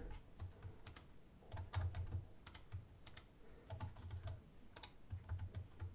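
Faint clicking of computer keyboard keys and mouse buttons, in small irregular clusters of a few clicks at a time.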